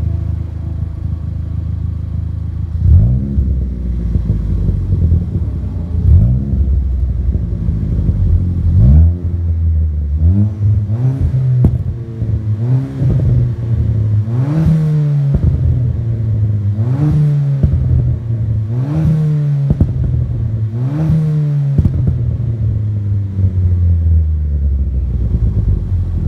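Ford Fiesta ST Mk7's 1.6 turbo four-cylinder with a Pumaspeed stage 1R crackle map and Cobra cat-back exhaust, blipped from idle. It gives three single revs a few seconds apart, then a quicker string of about nine revs, each followed by pops and crackles on the overrun, and settles back to idle near the end.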